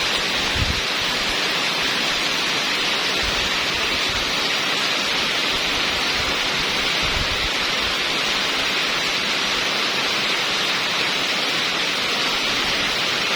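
Heavy rain pouring steadily, with strong wind buffeting the microphone in irregular low rumbles.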